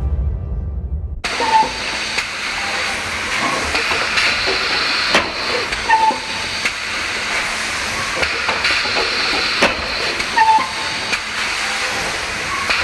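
Pneumatic furniture-testing machines running: a steady hiss of compressed air with scattered valve clicks and knocks, and three short high beeps.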